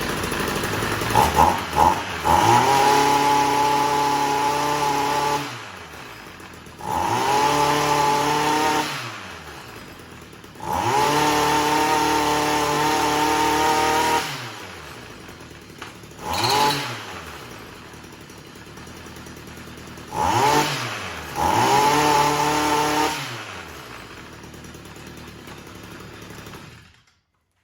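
Stihl MM55 Yard Boss two-stroke engine running on a newly replaced ignition coil: idling and revved up hard several times, each rev held for a few seconds or given as a short blip before the pitch falls back to idle, then shut off near the end. It runs without backfiring.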